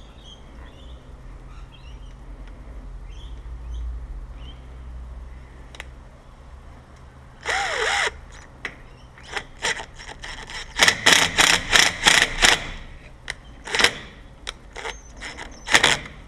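Tool work on a door lock: a half-second mechanical burst about halfway through, then a rapid run of short, sharp scraping or clicking strokes, with a few more near the end.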